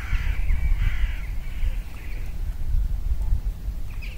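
Crows cawing, a harsh run of calls that fades out about two seconds in, over a steady low rumble.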